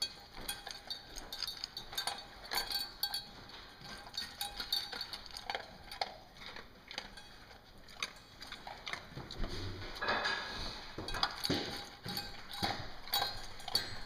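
Pointer mix dog eating from a stainless steel bowl: a run of irregular crunches and clinks against the metal, with a denser, lower stretch of noise about ten seconds in.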